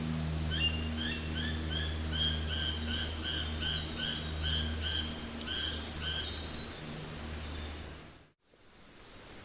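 Jungle ambience: a bird repeats one short chirp about three times a second for several seconds over a low steady drone and faint hiss. Near the end the sound dips almost to silence, then fades back in.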